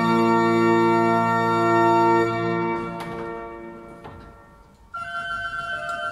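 Reichel pipe organ holding a full chord with deep bass, released a little over two seconds in and left to die away slowly in the stone church's reverberation. At about five seconds a new, quieter passage starts on a lighter, higher registration without the bass.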